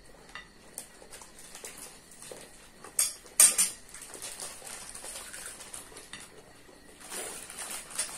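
Eating at a table: light taps and scrapes of a spoon and fingers on plates, with two loud, sharp noises about three seconds in.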